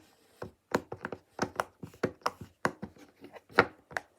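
Silicone pop-it fidget toy being pressed: a run of short, sharp pops, a few a second at an uneven pace.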